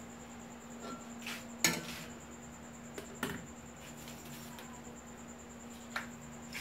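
A few short clinks and knocks of kitchenware being handled, the loudest about a second and a half in, over a faint steady hum.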